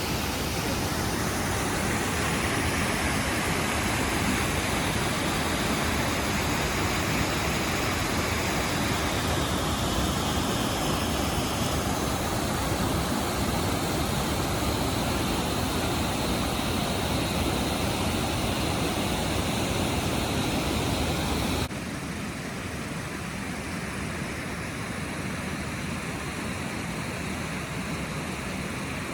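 Waterfall rushing with a steady noise of falling water. About three-quarters of the way through it drops suddenly to a quieter, duller rush.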